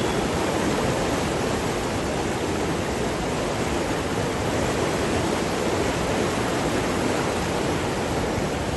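Swollen river floodwater rushing in a steady, unbroken roar.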